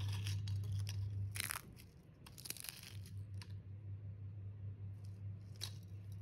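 Crisp fried green-banana chips crackling and rustling as a hand scoops them up off a plate and shifts them in the palm, in short clusters of sharp, dry clicks. A steady low hum runs underneath and drops out for about a second and a half near two seconds in.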